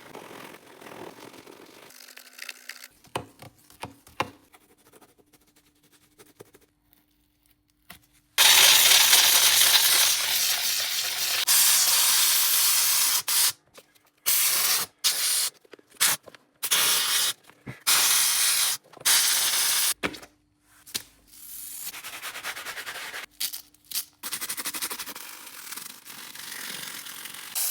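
Shoe-cleaning work on sneakers, cut together: quiet scratching and rubbing for the first several seconds, then a loud steady hiss starting about eight seconds in. After that come short stretches of hissing and scrubbing that start and stop abruptly.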